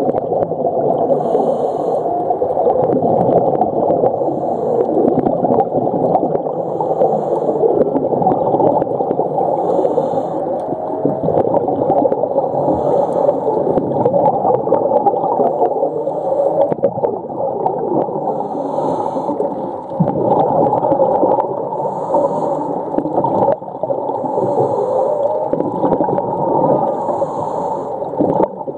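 Humpback whales calling, heard underwater: a continuous chorus of long, wavering moans and whines, with patches of hiss every second or two.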